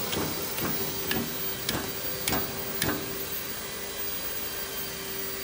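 Six sharp clicks about half a second apart as the adjustment handle of a circular blade sharpening machine is worked to move the grinding motor across toward the blade, over a faint steady hum; the clicks stop about three seconds in.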